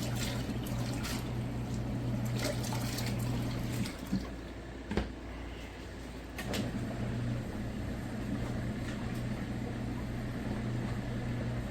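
Portable twin-tub washing machine's wash motor running with water churning in the tub: a steady hum under sloshing that stops about four seconds in and starts again a couple of seconds later, as the agitator pauses and reverses.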